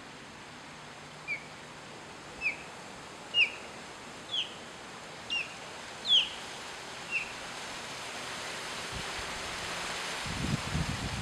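Osprey calling: a series of seven short, high, down-slurred whistled chirps about a second apart, over a steady outdoor hiss. Low rumbling comes in near the end.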